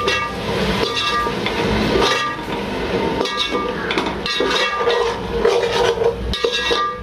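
Metal ladle stirring a thick masala in a large aluminium pot. It scrapes and knocks against the pot about once a second, and each stroke leaves the pot ringing.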